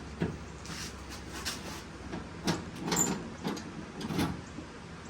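Clicks and clunks of a square-body pickup's door lock mechanism being worked with the key, as the linkage throws the lock up and down. There are about half a dozen clicks, most of them in the second half, over a steady low hum.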